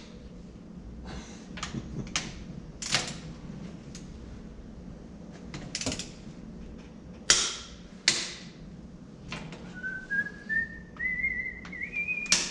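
Sharp clicks and knocks of a click-type torque wrench tightening the cylinder head bolts on a 1934 Chevrolet stovebolt six, spaced irregularly. Near the end a person whistles a tune that climbs in small steps.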